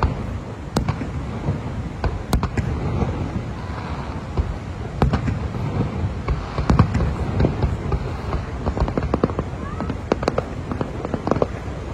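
Aerial fireworks going off: a dozen or more sharp bangs and crackles at irregular intervals over a steady low rumble.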